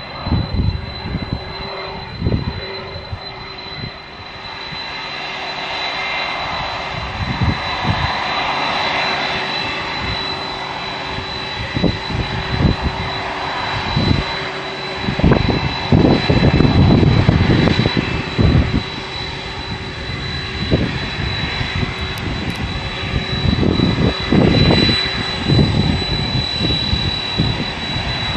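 Boeing 767 jet engines running at taxi power, a steady high whine over a lower hum and a broad rush that swells as the airliner turns toward the camera. Irregular low rumbles of wind on the microphone come and go, heaviest in the middle and near the end.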